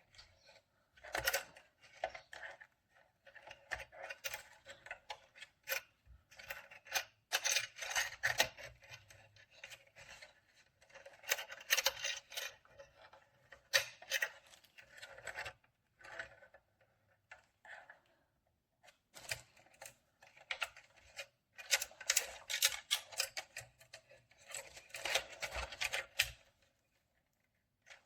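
Irregular clicking, rattling and rustling of small hard objects being handled, in clusters with short pauses between them.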